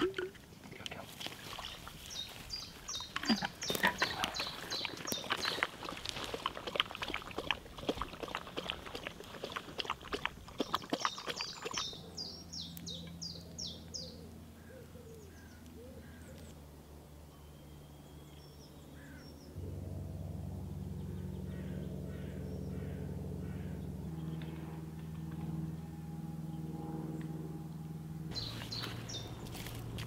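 Quick clicking and rustling with a few bird chirps, then a steady low drone from a light aircraft engine passing over. The drone gets louder about two-thirds of the way in and stops abruptly near the end.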